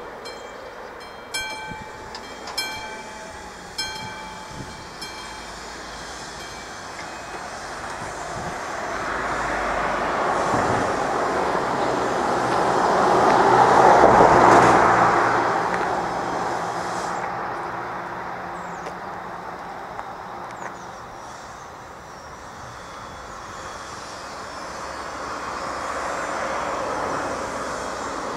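A level-crossing warning bell strikes a few ringing strokes about a second and a half apart, then falls silent. A train passes over the crossing, its running noise rising to a peak about halfway and fading away, with a smaller swell near the end.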